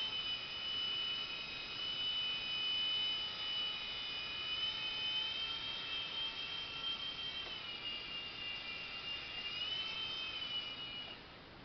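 Blade mCX2 micro coaxial RC helicopter in flight: a steady high whine from its small electric motors and rotors. The pitch drops about two-thirds of the way through, rises briefly, then the whine cuts off near the end.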